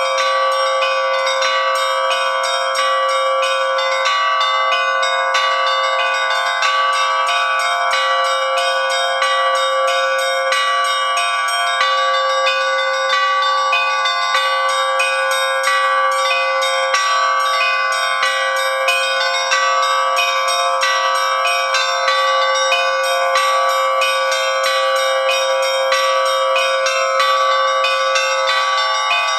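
Russian Orthodox church bells rung by hand, the ringer working the clappers with ropes: a fast, unbroken pattern of small-bell strikes, several a second, over the steady ringing of the middle bells.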